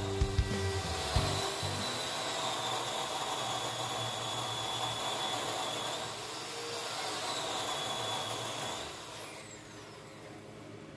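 Diode laser engraver running: a steady whirring hiss from its fans with a thin, high, steady whine. About nine seconds in the whine glides down and the noise drops as the job finishes and the machine winds down.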